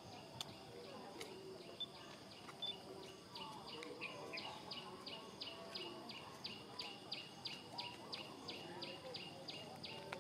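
Outdoor wildlife ambience: a steady high insect-like drone, with a rapid, evenly pulsed chirping call of about four chirps a second that builds up a few seconds in and continues most of the way through.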